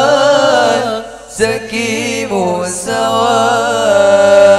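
Male voices singing a sholawat in Arabic, drawing out long melismatic notes. The singing drops away briefly about a second in, then takes up a new phrase with wavering ornaments and long held notes.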